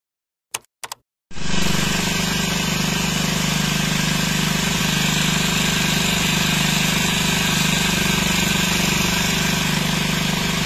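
A motorcycle engine, most likely a four-stroke petrol engine, running steadily to drive a water pump, mixed with the rushing of water gushing out of the pump's outlet pipe. It starts abruptly about a second in, after a few short clicks.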